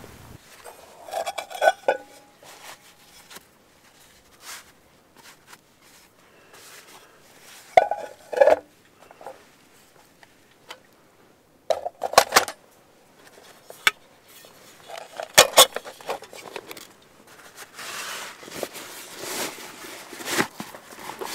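Metal camp cookware clinking and clattering as a pot, a nesting pan, a grill grate and utensils are handled and packed away. The clinks come in a few scattered clusters with quiet stretches between.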